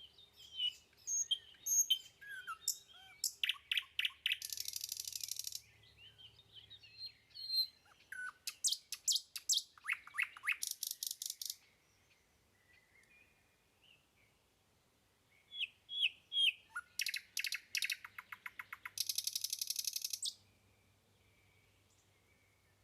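A songbird singing three phrases, each a run of varied chirps building into a fast trill, with pauses of a few seconds between. It falls quiet about twenty seconds in.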